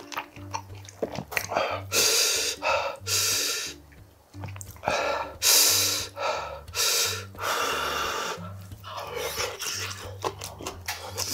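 A man eating pork kimchi stew: several loud, hissing breaths of about a second each, with chewing sounds between them.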